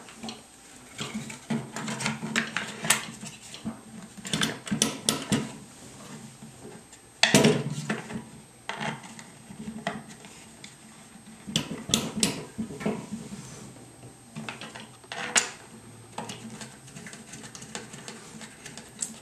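Irregular metallic clicks, clinks and knocks of shotgun and stock parts being handled and fitted together, with a louder knock about seven seconds in.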